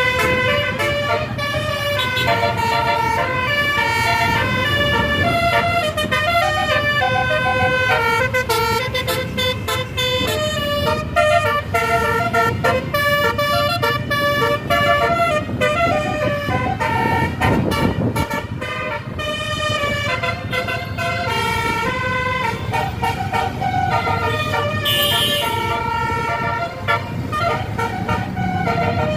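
Bus telolet horn, a set of tuned air horns, playing a melody: several tones sound together and step from note to note throughout. Under it is the low rumble of the bus's engine.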